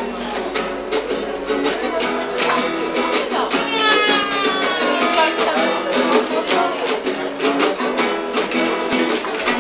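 A band playing music led by a strummed guitar in a steady rhythm, with a falling glide in the sound about four seconds in.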